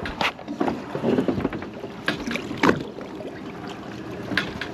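Water sloshing against the side of a drifting boat, with wind on the microphone and a few scattered sharp clicks and knocks.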